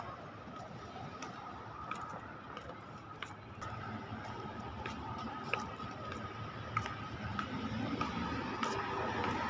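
Street traffic noise: a steady hum of cars with a thin steady tone and scattered small clicks, growing a little louder near the end.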